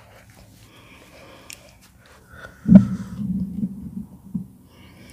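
Faint rustle of a cloth wiping the mouth, then a sudden knock about two and a half seconds in, followed by a low, uneven breath-like sound for a second or two.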